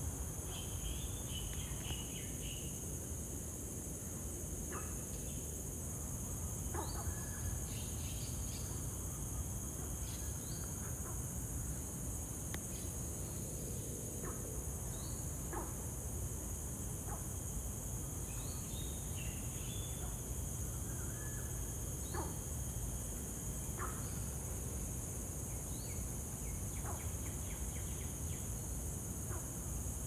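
Forest ambience: a steady high-pitched insect chorus, with short bird-like chirps and calls scattered through it over a low rumble.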